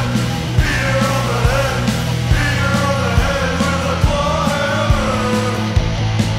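Rock song with a singing voice over bass, guitar and drums; the drums hit about twice a second.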